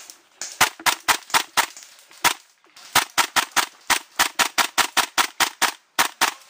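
Airsoft gun firing rapid single shots, about four or five a second: a run of about seven, a short pause, then about sixteen more.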